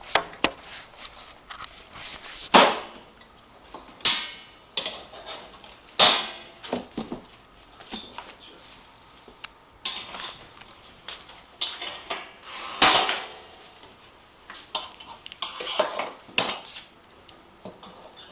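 Stainless steel table parts clattering as they are handled during unpacking, with several sharp metal knocks and smaller rattles in between.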